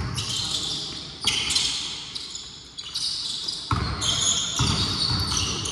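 A basketball bouncing on the court, with players' sneakers squeaking high and short as they run and cut.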